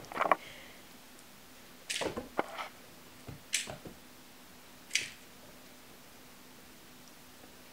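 A few light taps and knocks, some in a quick cluster and then single ones about a second apart: a kitten batting at a toy mouse hanging on a string so that it knocks against a wooden door, with the kitten's paws landing on a hardwood floor.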